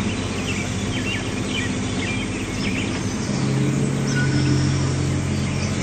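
Small birds chirping over a steady low hum, and the hum grows louder a little past halfway.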